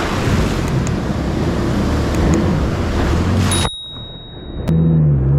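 Personal watercraft (jet ski) engine running under way through choppy surf, with a loud rush of wind and spray. About two-thirds through, the rush cuts off suddenly and the sound dips for a moment, then the engine comes back louder at a higher, wavering pitch.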